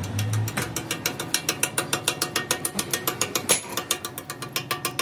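Rapid, even mechanical clicking, about eight to nine clicks a second, with one louder click about three and a half seconds in.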